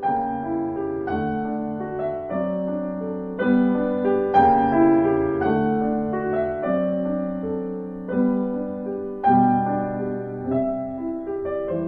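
Piano music: a slow run of held chords and notes, a new one struck every half second to a second.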